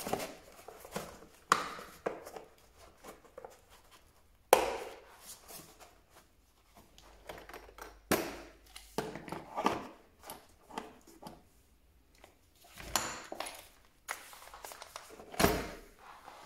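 Handling noise: irregular knocks and clicks of objects being moved and set down, with light rustling between them. The sharpest knock comes about four and a half seconds in, and a heavier thump comes near the end.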